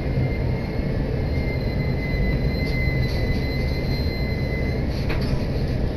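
Inside an electric train of the Joban Line rolling slowly along a station platform: a steady low rumble with a thin, high, steady whine that sets in just after the start and stops about five seconds in, plus a few light clicks.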